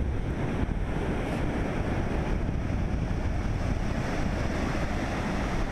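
Wind buffeting the microphone in a steady low rumble, with the hiss of surf breaking and washing up the sand.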